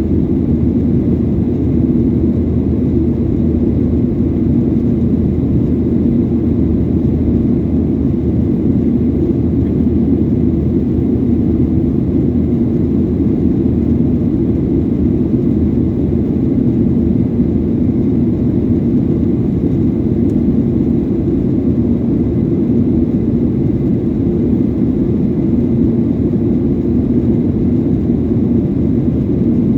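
Airliner cabin noise: a steady, loud drone of the jet engines and airflow, with a low hum that holds an even pitch and no change in level.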